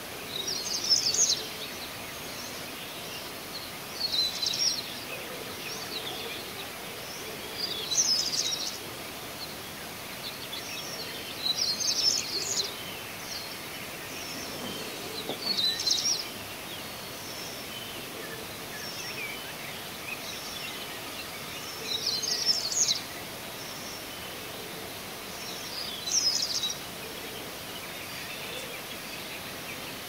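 A songbird singing short, high phrases about a second long, repeated every three to four seconds with one longer pause partway through, over a steady background hiss.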